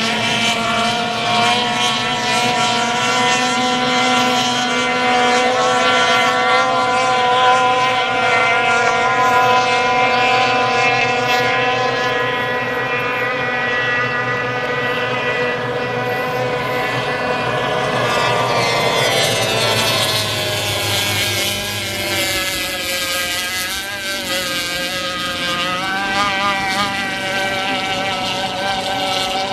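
Racing outboard motors on small hydroplanes running flat out, a steady high engine note. From about two-thirds of the way through, the pitch wavers up and down.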